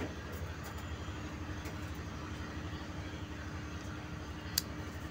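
Steady low background rumble with a faint constant hum, and one sharp click about four and a half seconds in.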